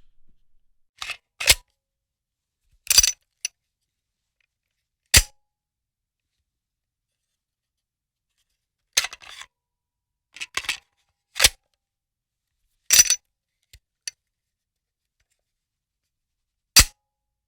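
Gun reloading: sharp metallic clicks and clacks of a firearm's action and magazine being worked, about a dozen in all. They come singly or in quick pairs and clusters, with silent pauses of one to three seconds between them.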